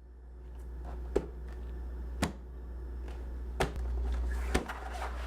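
Sharp knocks about once a second, five in all, as a person climbs a refrigerator, hands and feet bumping against it, over a low steady hum.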